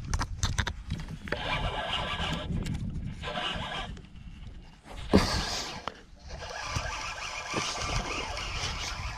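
Spinning reel being cranked in spurts, its gears giving a fast whirring rattle, with a sharp knock about five seconds in.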